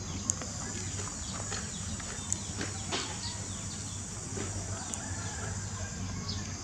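Outdoor background of birds chirping in short, scattered calls over a steady high insect drone, with a few faint sharp clicks.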